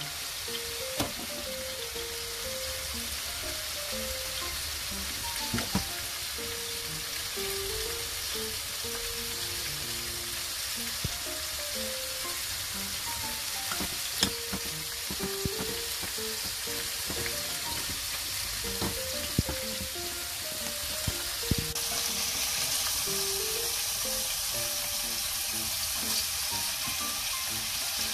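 Soft background music, a melody of single notes, over a steady hiss, with a few sharp clinks of a metal spoon against a glass bowl. About three-quarters of the way through, the sizzle of tofu pan-frying in oil grows louder.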